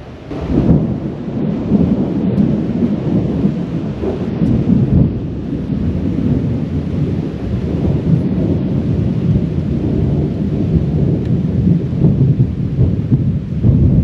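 Thunderstorm: long, continuous rolling thunder with rain. The rumble is loud and deep, and it swells and eases without a break.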